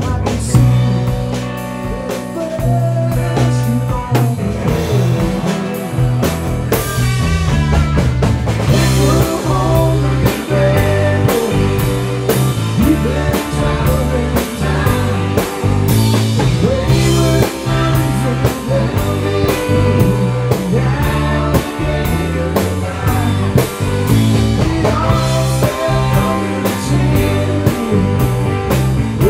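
Live rock band playing: electric guitars, electric bass and drum kit, with a steady beat.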